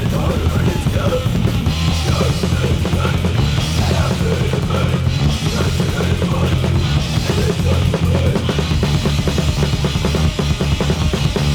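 Loud punk rock recording: a busy drum kit under a dense, noisy wall of distorted sound, with no let-up.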